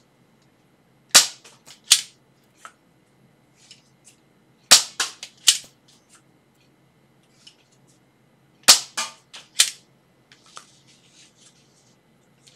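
Nerf Elite 2.0 Slyshot single-shot plunger blaster being primed and fired: sharp plastic clacks in three clusters about every three and a half seconds. Faint handling rustle follows near the end as the next dart goes in.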